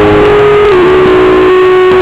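Music with guitar: a long held melody note that dips slightly in pitch just under a second in, over a steady accompaniment.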